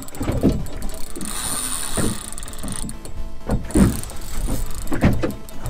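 Spinning fishing reel being cranked, its gears and ratchet working under load against a hooked fish on a hard-bent rod, with irregular knocks every second or so.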